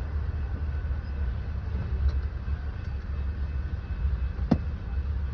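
Pickup truck idling, a steady low rumble heard from inside the cab, with one sharp click about four and a half seconds in.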